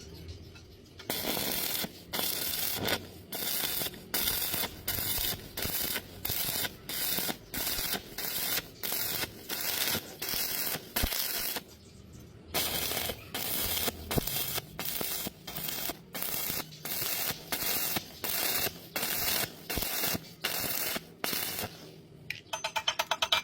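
Stick-welding arc crackling in short bursts, about one and a half a second, as the electrode's arc is struck and broken again and again. This is the stitch (on–off) technique for bridging a wide gap in thin metal without burning through. The bursts pause for about a second near the middle, then carry on.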